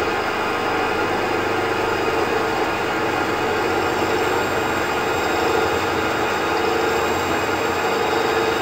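Small benchtop band saw running steadily while its blade cuts through a thick oak board.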